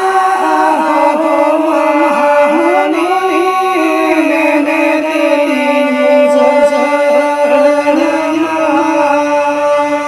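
Music with a sung, chant-like melody, the voice moving in wavering runs and then settling into long held notes near the end.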